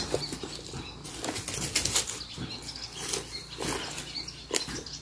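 Scattered footsteps rustling and crunching on dry leaf litter and stony ground, with light irregular clicks.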